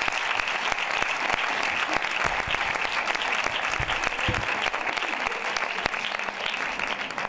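Audience applauding: dense, even clapping from many hands that stops near the end.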